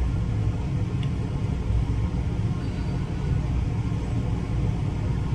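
Steady low rumble of background noise with no distinct event.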